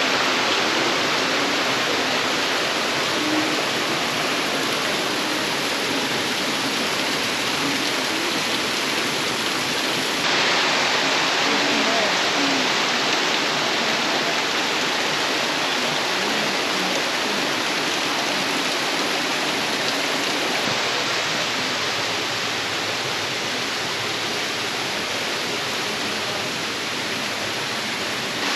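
Waterfall rushing, a loud steady wash of falling water, its level shifting abruptly twice.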